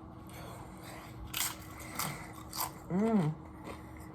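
Crunchy chips being bitten and chewed close to the microphone: several crisp crunches, then a short rising-and-falling "mmm" of enjoyment about three seconds in.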